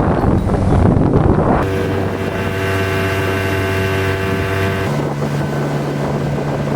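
Motorboat engine running at a steady speed, its hum shifting abruptly to a different pitch twice, with wind rushing over the microphone at the start.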